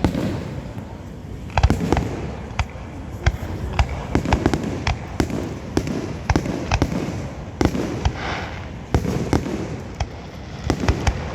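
Fireworks going off: an irregular run of sharp bangs and pops, one or two every second.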